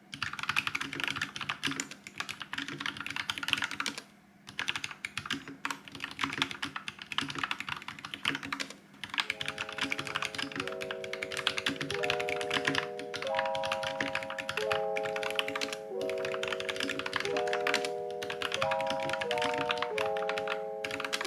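Rapid typing on a Vissles V84 wireless mechanical keyboard with quiet linear switches: a dense run of keystrokes, broken by two brief pauses. About nine seconds in, background music with slow sustained chords comes in under the typing.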